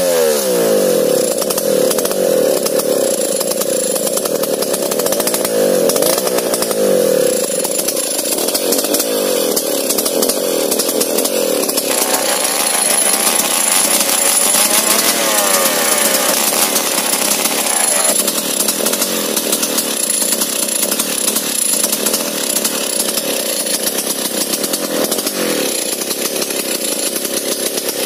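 Two-stroke Stihl chainsaw running hard while it rips lengthwise along a large log, its engine pitch repeatedly sweeping up and down as the chain cuts.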